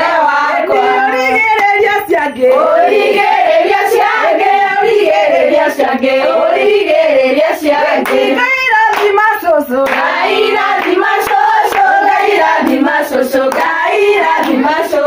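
A group of women singing together with rhythmic hand clapping.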